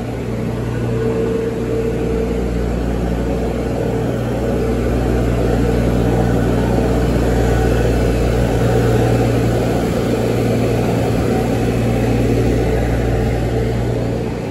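Engine and fan of a compact street-sweeper running steadily with a low hum. It grows louder toward the middle and fades a little near the end.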